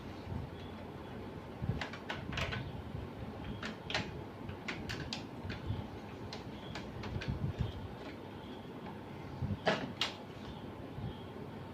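Scattered clicks and knocks of a laser printer's parts being handled and pried apart during disassembly, with a sharper double knock about ten seconds in, over a steady low background rumble.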